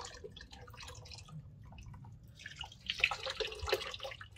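Liquid dripping and trickling from hands squeezing soaked malt (yeotgireum) into a plastic basin, with wet splashing that is loudest about three seconds in.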